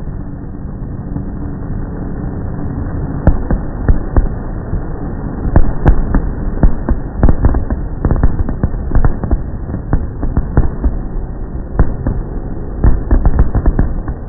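Aerial fireworks launching and bursting: a fast, irregular string of sharp bangs and pops. It thickens from about three seconds in, over a steady low rumble.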